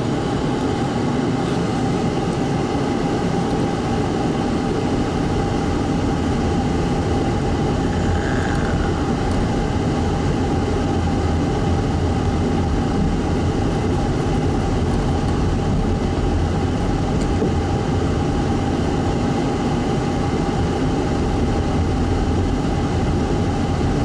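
Steady engine and road noise heard from inside a moving car's cabin, an even low rumble.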